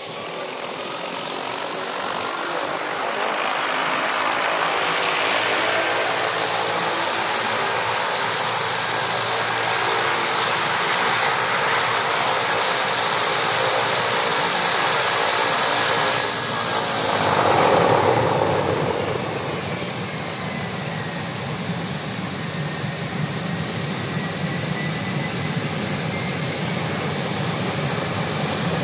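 Thrush S2R-T34 crop-duster's PT6A-34 turboprop engine running on the ground, with a whine that rises over the first few seconds. A surge of noise comes about seventeen seconds in, after which the engine settles into a steady, deeper run.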